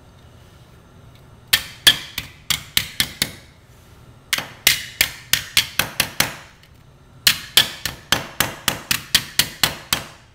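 Hammer blows on a folded strip of tin sheet, flattening the fold: three runs of sharp strikes, about four a second, with short pauses between.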